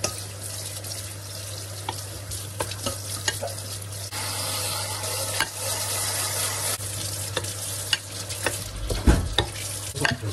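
Kitchen tap running steadily, its water splashing onto a metal strainer and onto a wooden cutting board being scrubbed with a sponge, louder for a few seconds in the middle. A spoon clinks now and then against a glass bowl as marinated chicken is stirred.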